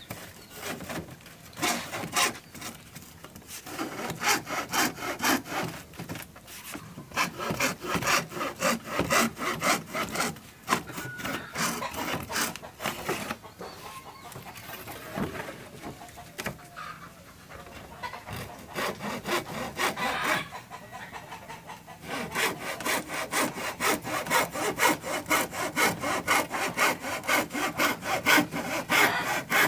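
Hacksaw cutting a thin sheet of 3 mm mahogany plywood by hand, a rasping back-and-forth stroke after stroke. The strokes thin out and turn irregular around the middle, then pick up again, quicker and steady, about two to three a second, in the last several seconds.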